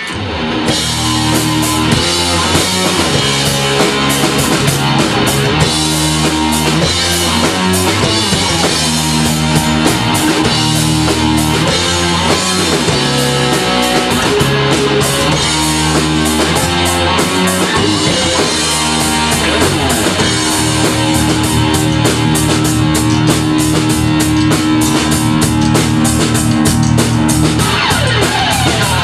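Live rock band playing an instrumental passage: electric guitars and bass repeating a riff over a drum kit keeping a steady beat, with no vocals.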